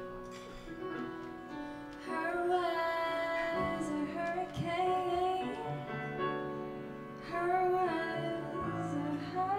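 A woman singing live into a microphone, accompanied by piano and guitar; her held notes grow louder about two seconds in.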